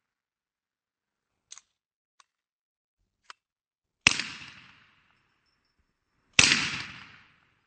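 Sten Mark II submachine gun firing twice, about two and a half seconds apart, each report ringing out and fading within about a second. A few faint clicks come before the shots.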